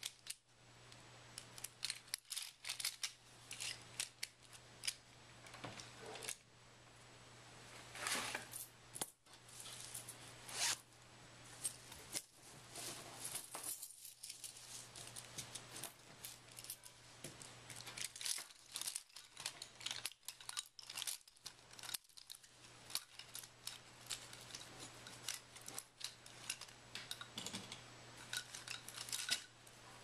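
Irregular light clicks, scrapes and snips of small objects being handled, coming in scattered clusters over a steady low hum.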